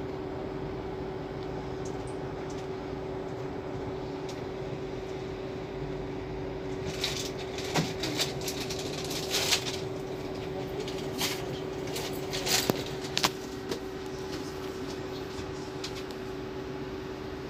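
Cabin of a Marcopolo Attivi Integral electric bus: a steady hum with one constant tone, and a run of clicks and rattles between about seven and thirteen seconds in.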